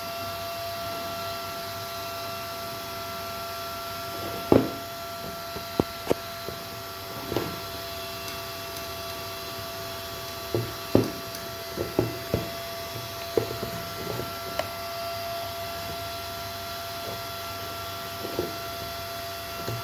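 Scattered sharp clicks and knocks of tools and parts being handled during repair work, the loudest about four and a half seconds in, over a steady hum with several fixed high tones.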